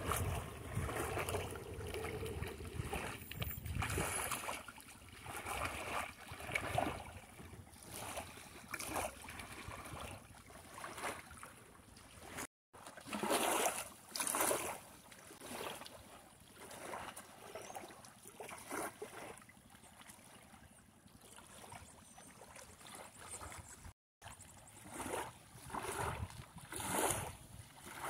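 Small waves lapping on a sandy shore in irregular, uneven surges, with wind on the microphone.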